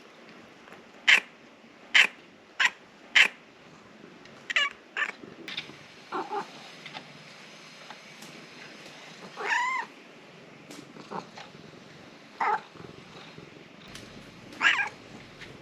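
Domestic cat calling: four short, sharp calls in quick succession about a second in, then a scattered run of varied meows, with one longer call rising and falling in pitch near the middle.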